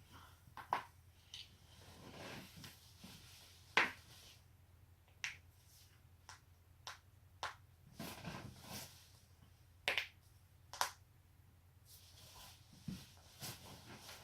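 Joints cracking: about a dozen sharp separate pops spaced irregularly, roughly a second apart, the loudest about four seconds in, with soft rustling between them.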